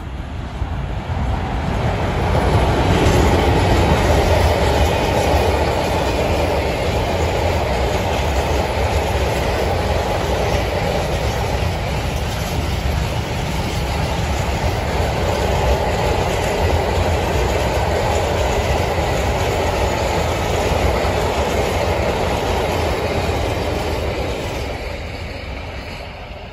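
A Vossloh G2000 diesel locomotive hauling a container freight train passes close by. Its engine noise swells over the first few seconds, then the long line of wagons rumbles steadily past on the rails, and the sound fades away in the last couple of seconds as the train moves off.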